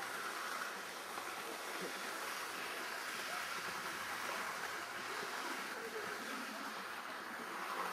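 Steady, even hiss of outdoor noise, with no speech and no sudden sounds.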